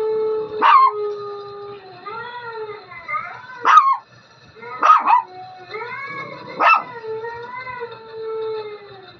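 Dogs howling in long, wavering drawn-out notes, broken by four short sharp barks, the first under a second in.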